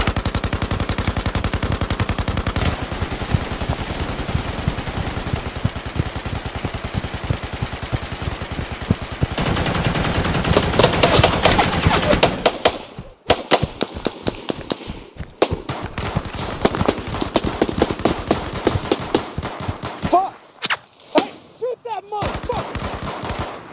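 Battle sound: sustained rapid automatic gunfire for about twelve seconds, louder toward its end. Then scattered single shots and short bursts.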